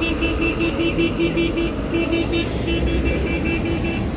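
Rapid, evenly spaced electronic beeping at one fixed pitch, about six beeps a second with a couple of short breaks, over the low running rumble of bus engines.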